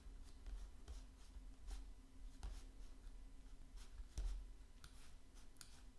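Faint room tone: a steady low hum with scattered light clicks and taps, one louder knock a little after four seconds in.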